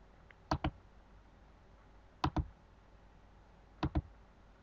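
Computer mouse button clicking: three quick pairs of clicks, about a second and a half apart.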